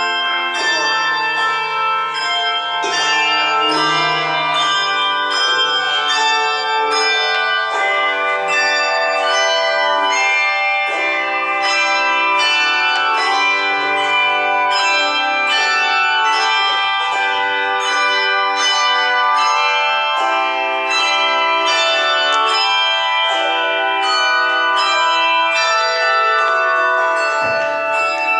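Handbell choir playing a piece: many bells struck in melody and chords, each note ringing on under the next.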